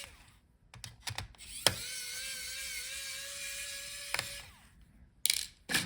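Small electric screwdriver whining steadily for about two and a half seconds as it backs out a laptop heatsink screw. Short clicks of the bit and screws come before and after it.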